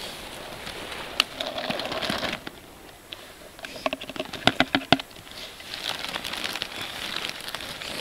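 Rustling and crinkling from handling blueberry buckets, with a quick run of sharp taps a little past the middle, as blueberries are tipped from one small bucket into another.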